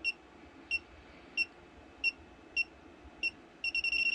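Klein Tools 80016 circuit breaker finder receiver beeping at a breaker panel: short high single beeps about every two-thirds of a second, then a quick run of beeps that runs into a steady tone near the end, the finder's signal that it has found the breaker feeding the circuit.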